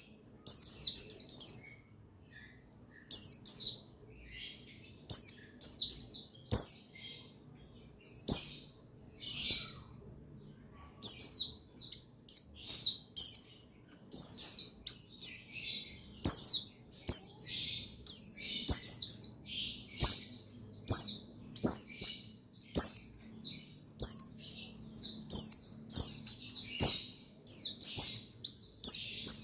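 Buxtoni white-eyes (pleci) calling in rapid runs of short, high, falling chirps, a colony-call recording used to rouse male pleci into song.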